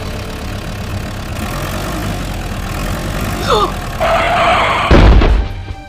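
Vehicle-like engine noise with a couple of short gliding whistles, then a heavy low thump about five seconds in.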